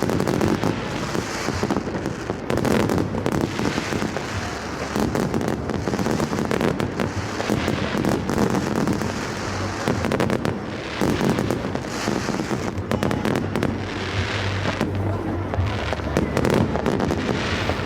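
A fireworks display: many bangs and crackling bursts overlapping without a break.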